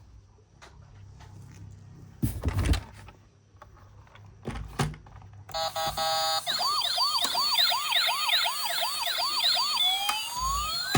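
Plastic toys knocking and clattering as they are handled, then a battery-powered toy emergency vehicle's electronic siren starts about halfway in: a short beeping tone, a fast yelping siren, and near the end slower rising and falling wails.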